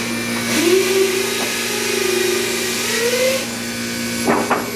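Electric wood planer running and cutting a pass along a timber board for a door frame, with a hissing cut and a wavering tone from about half a second in until past the three-second mark. Two or three sharp knocks come near the end.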